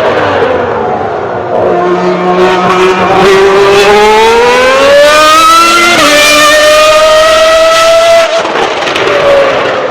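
Ferrari 412 T2's 3.0-litre V12 Formula One engine at full throttle. Its pitch dips at first, then climbs steadily, jumps at a gear change about six seconds in, and drops away sharply after about eight seconds.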